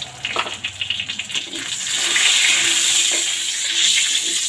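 Hot oil sizzling in a kadai with cumin seeds, a dried red chilli and bay leaves: the tempering spices crackle while a metal spatula stirs them. The sizzle swells and becomes louder about two seconds in.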